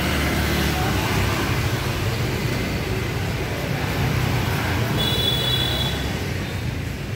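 Street traffic: a motorbike and a car passing close by, engines running, over a steady rumble. A brief high-pitched tone sounds about five seconds in.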